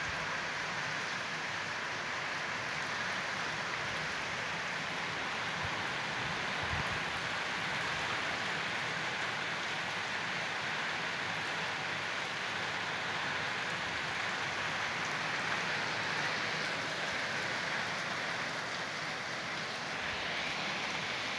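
Steady rain falling, an even hiss that holds without a break.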